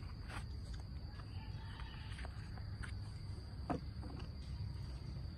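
Steady low background hum with a few faint clicks and taps, one sharper click about two-thirds of the way through.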